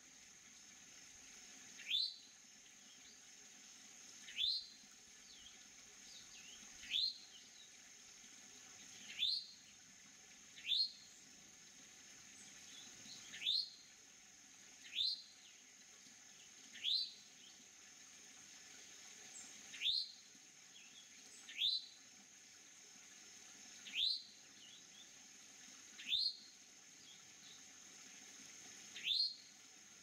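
A songbird calling: a short, sharply rising chirp repeated about every two seconds, over a steady high-pitched drone.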